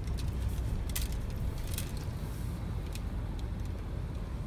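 Low, steady rumble of a car heard from inside the cabin as it rolls slowly forward, with a couple of short clicks about a second and nearly two seconds in.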